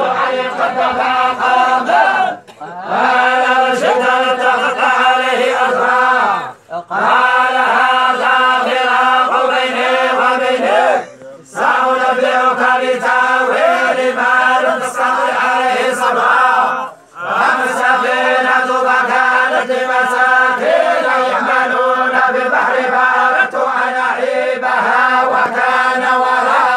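A group of Moroccan tolba (Quranic reciters) chanting religious recitation together in unison. Long sustained phrases are broken by brief pauses four times.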